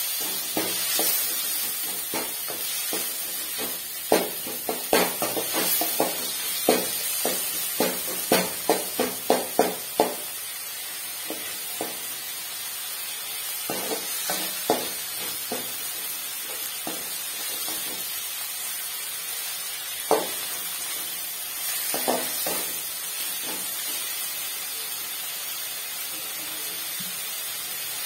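Tomatoes and onions frying in a metal kadai, sizzling steadily while a metal slotted ladle stirs and scrapes them. Between about four and ten seconds in comes a quick run of sharp clinks of the ladle against the pan, with a few more later.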